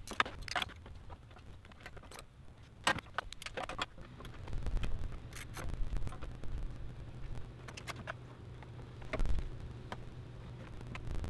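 Hand tools and metal parts clinking and scraping in a car engine bay: scattered sharp clicks and knocks. A low steady hum comes in behind them about halfway through.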